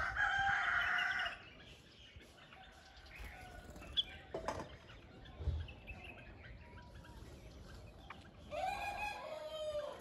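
A rooster crowing twice: one crow right at the start and another near the end that drops in pitch as it finishes, with a few faint clicks between.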